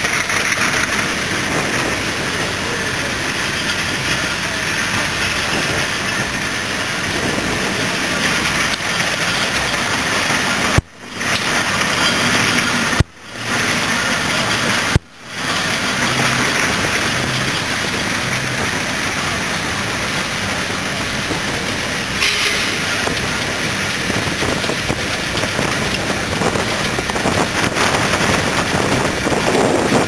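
1934 Aveling & Porter AD class steam road roller running as it moves across the grass, under a steady rushing noise. The sound drops out briefly three times around the middle.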